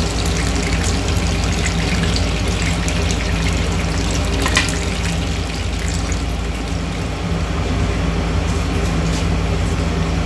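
Batter-coated chicken pieces sizzling and crackling as they shallow-fry in hot oil in a pan, over the steady hum of a kitchen chimney hood fan. One sharp click about four and a half seconds in.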